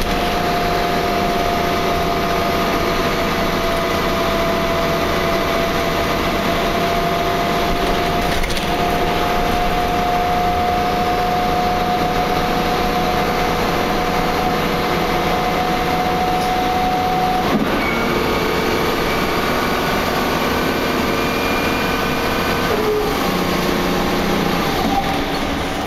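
Wright Cadet single-deck bus heard from inside while driving: steady running noise with a sustained whine that drifts slightly lower, then changes to different tones about two-thirds of the way through and again near the end, over creaking and rattling. These are the weird noises of a bus in poor condition.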